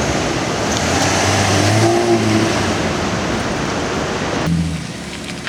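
A car engine running under a loud rushing noise, which drops off abruptly about four and a half seconds in.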